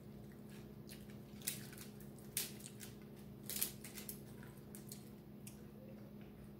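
Fingers picking apart a cooked fish on an aluminium-foil tray: faint irregular crinkles and clicks of foil and food, with a few sharper clicks, over a steady low hum.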